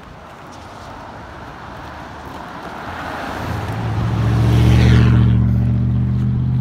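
A car approaching on the road, its tyre noise and engine growing louder, loudest about five seconds in, then the engine running on steadily.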